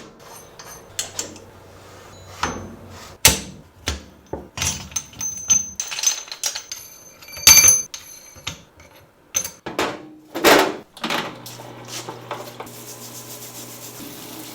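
Hand tools knocking, tapping and clinking on the metal parts of a dirt-bike rear shock being taken apart, a couple dozen irregular strikes, one ringing sharply about halfway through, over a faint low hum.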